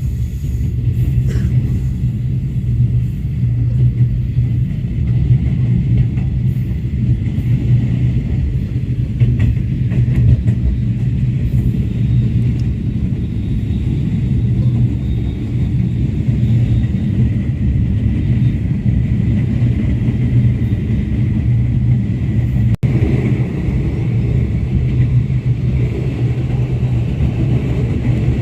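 Steady low rumble of the Express Rakyat Timuran, a diesel-hauled passenger train, running along the track, with a faint steady high tone above it.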